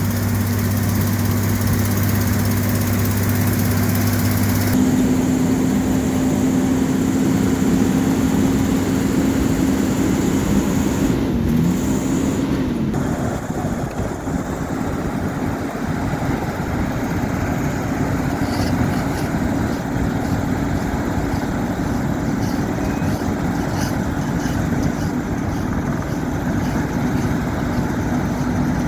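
Diesel engines of asphalt-paving machinery running with a steady drone. The sound changes abruptly about five seconds in, and the pitch briefly dips and rises again about twelve seconds in.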